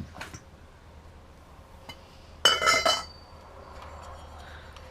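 Loose metal pieces clinking and clattering together with a bright ringing, loudest for about half a second midway, after a couple of small clicks at the start.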